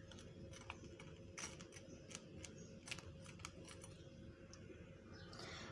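Faint, scattered light clicks and scrapes of a utensil spreading sauce over a toasted bun.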